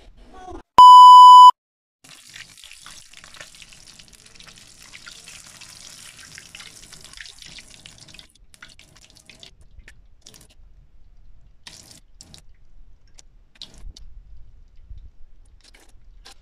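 A loud, high beep of under a second about a second in, then hot oil sizzling and crackling around snack pieces deep-frying in a metal wok. After about eight seconds the sizzle thins to scattered pops.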